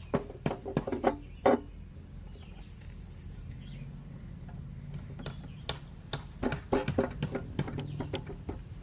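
Irregular clicks and clinks of metal parts and hand tools being handled while refitting a lawn mower's flywheel, busiest in the first second and a half and again past the middle.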